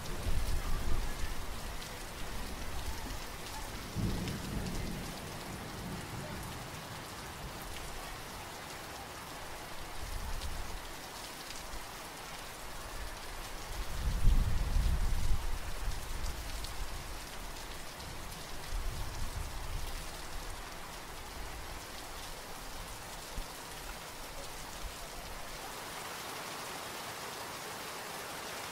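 Steady rain with rolls of thunder: several deep rumbles swell and fade, the loudest about halfway through, and the rumbling dies away near the end, leaving the rain alone.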